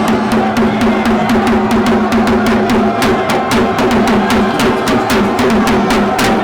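Loud, fast drum-driven music: rapid strokes over a steady low pitched line.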